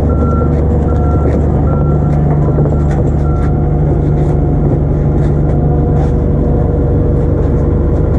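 Backhoe's diesel engine running steadily under load, with its backup alarm beeping about once a second for the first few seconds and then stopping. Faint clanks are scattered through it.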